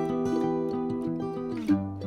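Background music: acoustic guitar playing chords, with a chord change near the end.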